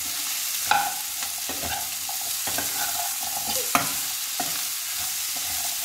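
Jackfruit-seed slices and grated coconut frying in a non-stick kadai with a steady sizzle, while a spoon stirs and scrapes them around the pan in several separate strokes.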